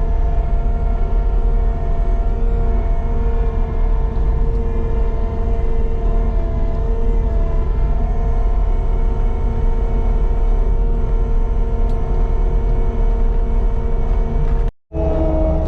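Caterpillar 299D2 compact track loader running steadily under work, a deep engine drone with a steady whine over it. The sound drops out for an instant near the end.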